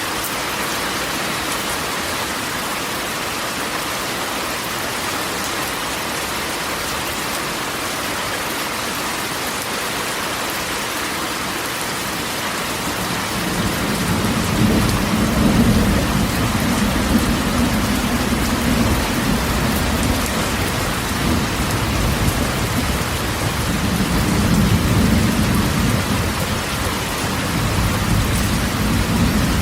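Steady rain drumming on a corrugated tin roof. About halfway through, a long low rumble of thunder rolls in and keeps rolling under the rain.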